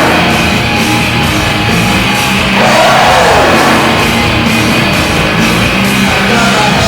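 Loud hard rock music with electric guitar, played as a hockey team's goal song.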